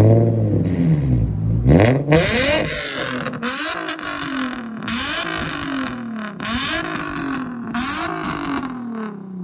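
Infiniti G35's V6 through a straight-piped exhaust, free-revved while parked. A loud rev falls away at the start, then comes a run of short throttle blips about once a second, each rising and dropping back, before it settles toward idle near the end.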